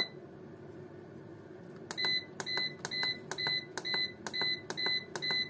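Kitfort food dehydrator's control panel beeping with each button press as its timer is stepped down: one beep at the start, then a quick run of short beeps, about two or three a second, from about two seconds in. A low steady hum runs underneath.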